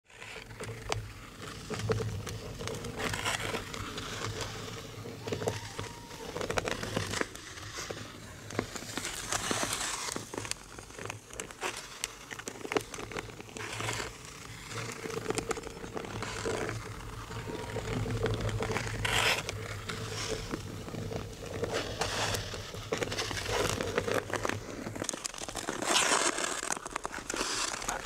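Ice skate blades scraping and cutting across the clear black ice of a frozen lake, in irregular rasping strokes with crackles, over a steady low hum.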